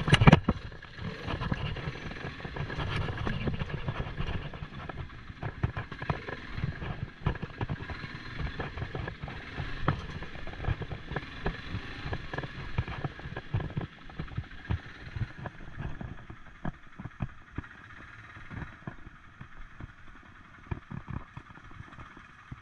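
ATV engine running at low speed, with irregular knocks and rattles from the quad rolling over a bumpy lane. A loud knock comes right at the start, and the sound drops to a lower level about two-thirds of the way through.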